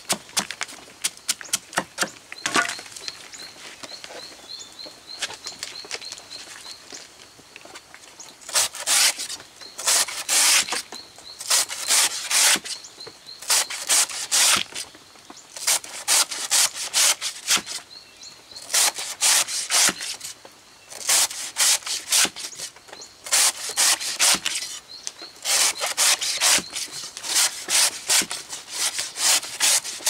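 Rasping strokes of a hand blade working wood or plant stems, in runs of several strokes about a second apart, after a stretch of quick sharp clicks at the start.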